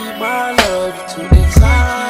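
R&B/hip hop music between vocal lines: gliding melodic synth notes over a beat, with sharp drum hits and deep bass notes.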